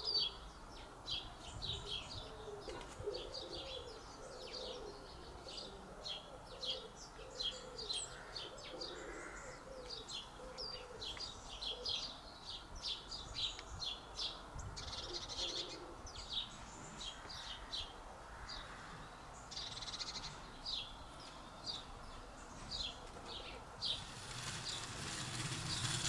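Garden birds chirping, short high notes repeated about once or twice a second, with a low repeated cooing in the background during the first half. A broad rushing noise swells near the end.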